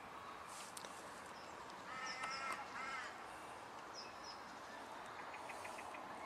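Faint outdoor background with birds calling: a short call repeated three times about two to three seconds in, and a few brief high chirps.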